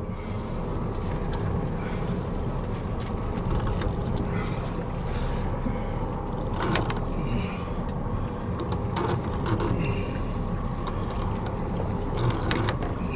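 Boat engine running steadily at low speed, with a few short knocks and clicks scattered through it.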